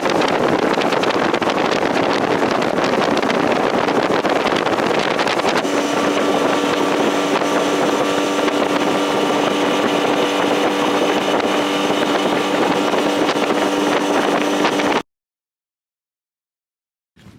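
Motorboat engine running under way, with heavy wind noise on the microphone. About six seconds in, a steady engine whine comes through over the wind, and the sound cuts off abruptly to silence about fifteen seconds in.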